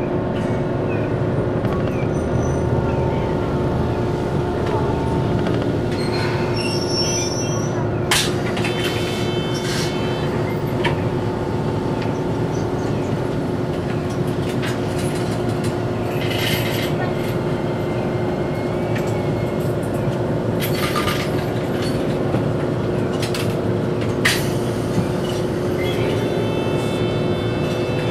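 Cabin sound of a Toyohashi Railroad 780-series tram as it slows to a stop and stands there: a steady hum and low rumble, with a few sharp clicks and knocks.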